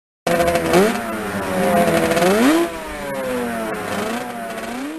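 Engine revving up and down several times, each rev a quick rise in pitch followed by a slower fall. It starts suddenly just after the opening and is loudest in the first half.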